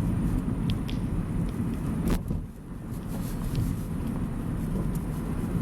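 Steady low rumble of a car, with a single sharp click a little over two seconds in.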